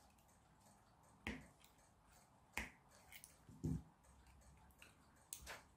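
A few faint, sharp clicks and taps from hands handling small 3D-printed plastic puzzle parts and a glue bottle, with one duller knock a little past halfway.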